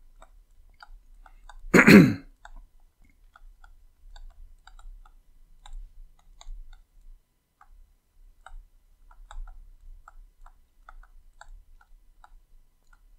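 Faint, irregular light ticks of a stylus tapping and sliding on a tablet screen while handwriting, with one short, loud throat-clear about two seconds in.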